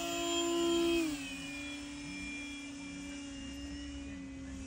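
Electric RC airplane's motor and propeller whining steadily overhead. The pitch is a little higher for the first second, then steps down and holds steady.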